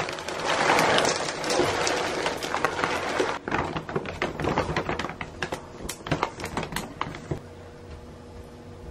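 Dry dog kibble pouring from a bag into a clear plastic storage container: a dense rattle of pellets for the first three seconds or so, thinning to scattered clicks of the last pieces until about seven seconds in.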